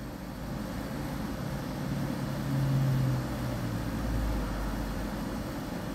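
Low steady background rumble and hum, swelling a little about halfway through, with the deepest rumble strongest near the end.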